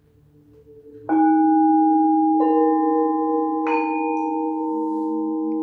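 Meditation music: a faint fade-in, then three struck bell-like tones about 1.3 s apart, each ringing on and building into a sustained, layered chord.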